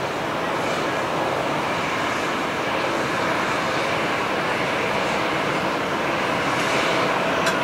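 Airbus A320-216's CFM56 jet engines running at low taxi power as the airliner taxis onto the runway: a steady jet rush with a faint whine.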